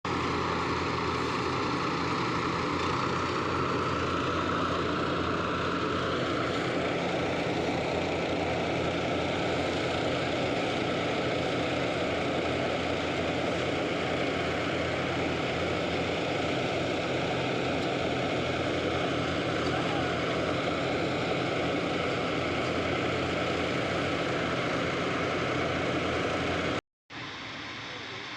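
Engine-driven groundnut threshing machine running steadily, a dense mechanical drone over a low engine hum. Near the end the sound cuts out for a moment and resumes quieter.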